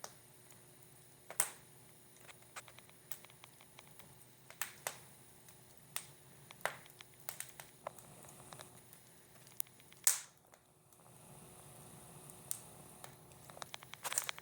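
Wood fire crackling in a fireplace: irregular sharp pops and snaps over a low steady background, with one louder pop about ten seconds in.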